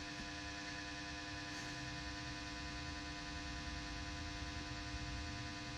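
A steady electrical hum with a buzz, one unchanging low tone with many even overtones above it; nothing else stands out.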